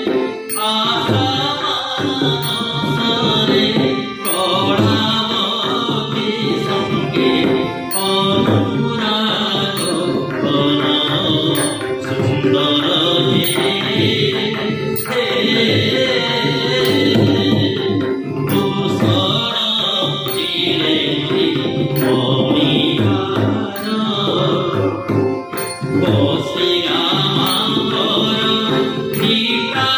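A male voice singing an Odissi chhanda to a harmonium, with a hand-played double-headed barrel drum keeping the rhythm. Thin bright ticks mark the beat throughout.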